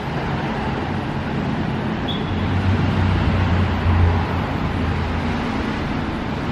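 A steady low mechanical hum over a continuous rushing noise, swelling somewhat between about two and a half and four seconds in.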